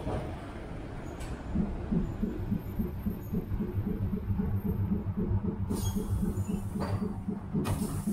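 Vintage Milan Series 1500 ('Ventotto') tram running, heard from on board: a steady low hum with quick rhythmic pulsing from the motor and running gear. There is a sharp click about a second in and several more in the last few seconds.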